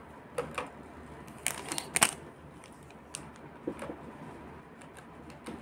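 Small jewellery pieces being handled: scattered light clicks and crinkling, a cluster of sharper clicks about two seconds in.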